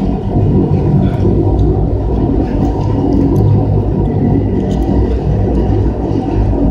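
High-pressure sewer jetter running: a steady low rumble of the engine and pump as it jets out a commercial drain line clogged with roots and grease.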